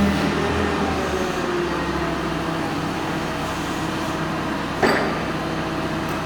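Caterpillar/Mitsubishi 4,000 lb LP forklift's engine running steadily, its pitch easing slightly lower in the first couple of seconds. A single sharp click comes about five seconds in.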